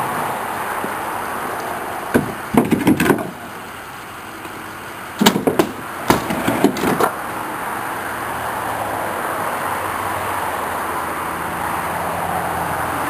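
Split firewood pieces knocking and clattering as they are pulled from the back of a raised dump-truck bed and dropped onto a woodpile, in two bunches of knocks, over the steady running of the truck's engine.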